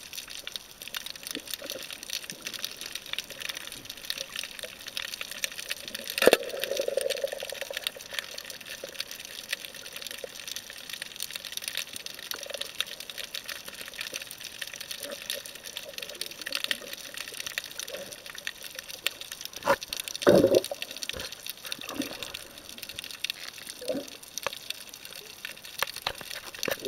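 Underwater sound picked up by a camera in its housing: a steady crackling hiss of the sea, with a sharp click about six seconds in followed by a short bubbly rush, and a few louder knocks and bubbly bursts around twenty seconds in.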